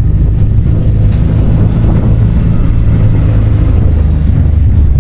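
A vehicle engine running steadily, a loud low drone with a noisy rush over it.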